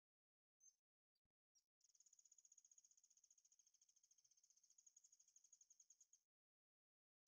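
Very faint high-pitched animal chirping: two or three short chirps, then a fast, even trill lasting about four seconds.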